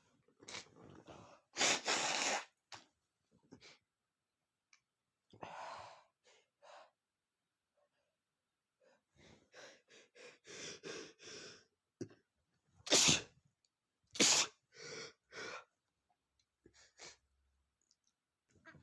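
A man sneezing over and over, with sharp in-breaths building up before the sneezes. The loudest are a long sneeze about two seconds in and two sharp sneezes a little over a second apart past the middle.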